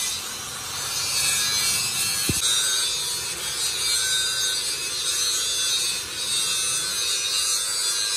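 Angle grinder running steadily with its disc pressed against a steel truck rear axle housing, grinding down a weld bead on the differential housing.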